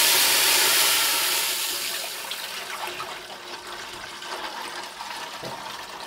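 Water poured from a steel vessel into a hot aluminium pot of spices fried in oil and ghee: a loud hiss of steam as the water hits the hot fat, dying down over the first two seconds into the steady sound of pouring water with a few small crackles.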